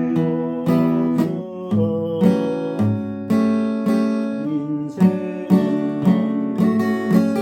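Acoustic guitar strummed, moving through a steady series of chords with a clear attack on each strum.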